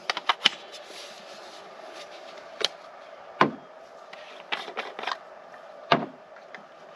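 Irregular sharp clicks and knocks of small hard objects being handled and set down, with a quick run of them at the start, another about five seconds in, and the loudest knock about six seconds in, over a steady low hiss.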